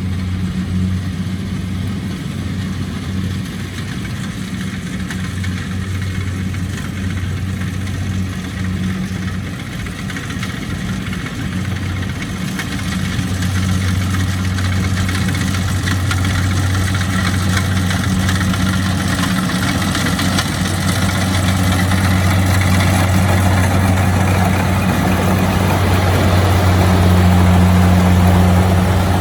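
Kubota DC-70 Plus combine harvester's diesel engine running steadily with a constant low hum, getting louder about halfway through and loudest near the end.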